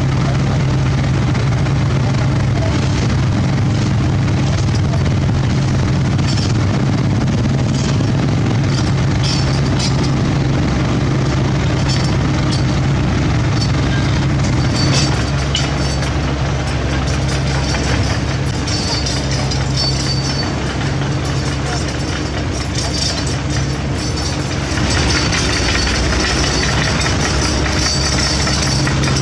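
Diesel engines of a CAT 307.E2 mini excavator and a Hino 500 dump truck running steadily with a low, even hum. Near the end a harsher, higher clatter rises over it as the excavator travels off.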